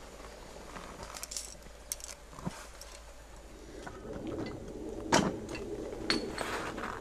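Climbing gear clinking and clothing rustling as climbers shift about on a belay stance, with scattered small clicks, then two sharp knocks about five and six seconds in, the first the loudest.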